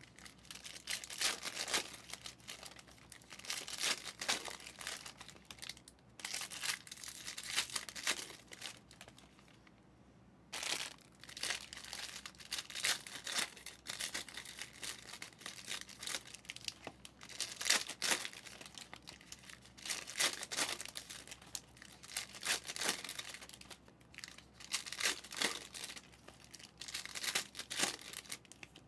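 Foil trading-card pack wrappers crinkling and tearing as packs of football cards are opened by hand, in irregular rustling bursts with a brief lull about ten seconds in.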